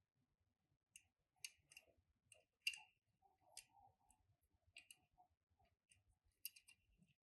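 Faint, scattered clicks and light taps from handling a Tomica die-cast toy car and its packaging, about a dozen irregular clicks with the sharpest a little under three seconds in.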